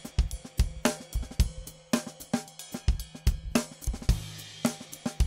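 Background music: a drum-kit beat with cymbals and hi-hat, about two strikes a second, over a steady low bass note.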